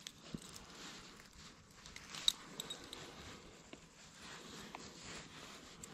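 Faint small clicks and rustles of a soft-plastic shad lure and its metal hooks and spinner blade being handled, with one sharper click a little past two seconds in.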